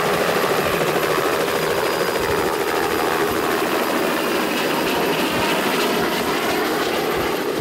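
Robinson R66 Turbine helicopter lifting off and climbing away: steady turbine and rotor noise with a fast, even rotor beat.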